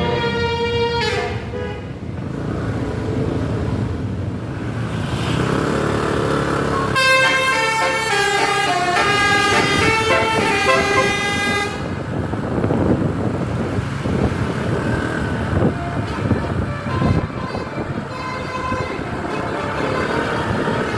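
Bus 'telolet' musical multi-tone horns sounding over bus engine noise. First comes a falling horn note, then about seven seconds in a run of rapidly changing horn tones lasting some five seconds. After that, engine and road noise with fainter horn notes.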